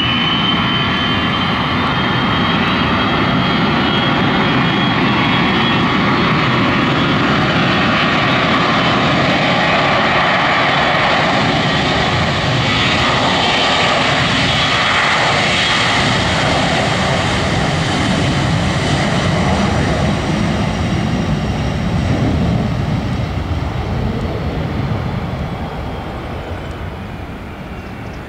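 Boeing 737-300's twin CFM56-3 turbofans at take-off thrust on the take-off roll: a loud, steady jet noise with a high whine. It is loudest as the aircraft passes and fades over the last few seconds as it moves away.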